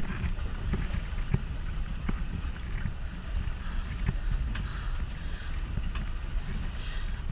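Steady wind rumble on the microphone aboard a swan pedal boat, with scattered faint knocks.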